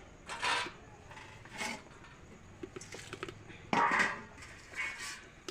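Four short scraping, rustling handling sounds of food being prepared, the loudest near four seconds in.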